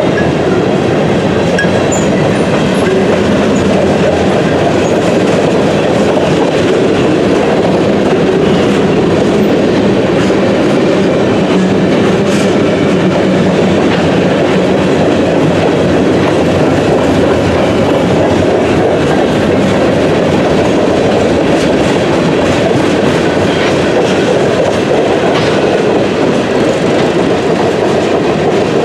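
Cars of a mixed freight train rolling past on the track, a loud, steady, unbroken rumble of wheels on rail with no horn.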